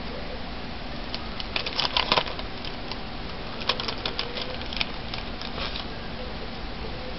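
Quick, irregular clicks and crackles of a thin plastic stencil being handled and laid on a wooden tabletop, in two flurries, about a second in and again near the middle, over a steady background hiss.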